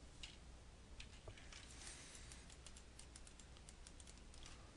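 Faint computer keyboard keys being pressed: a few scattered taps, then a quicker run of taps in the second half, over low steady hiss.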